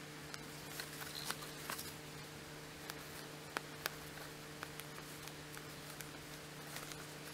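Faint, irregular small clicks and light rustles of a needle and thread being drawn through cotton fabric in a hand-sewn running stitch, with two sharper ticks a little past halfway. A steady low hum lies underneath.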